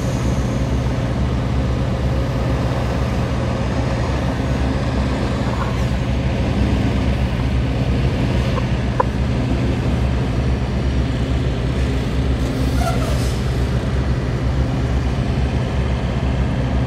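Diesel semi-truck engine running steadily at low revs, a deep even rumble with no change in pitch.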